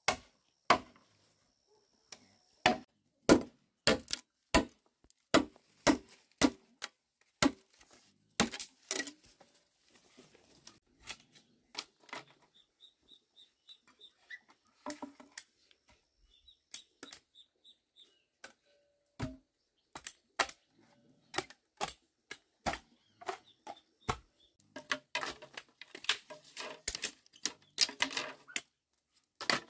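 Machete chopping and splitting green bamboo poles: sharp, evenly spaced strikes about two a second at first, then sparser and lighter blows, and a quick run of strikes near the end.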